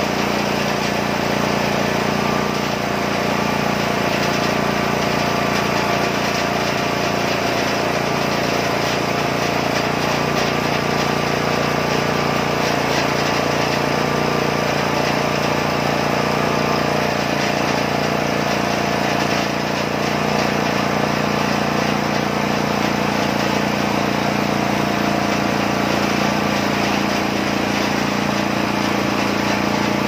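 Homemade band sawmill running steadily: its petrol engine drives the band blade through a hardwood log as the saw head travels along the cut.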